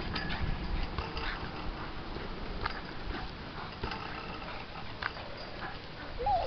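A Boston terrier making short, scattered excited noises while it leaps at and grabs a swinging tetherball, with a few sharp knocks.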